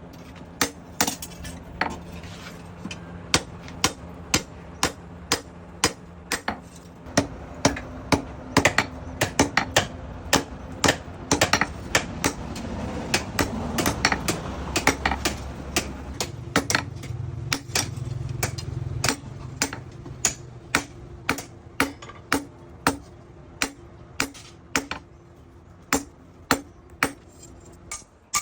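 Hand hammer beating steel on an anvil in a steady rhythm, about three blows a second, each with a short metallic ring, over a steady low hum: forging chainsaw steel into a knife blade.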